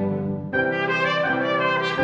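Mixed chamber ensemble of brass, woodwinds, strings, harp and piano playing. About half a second in, the trumpets and trombone come in brightly over the band and carry the melody.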